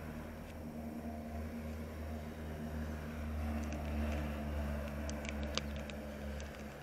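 An engine running steadily at idle, a low hum made of several steady tones, with a few small clicks about five seconds in.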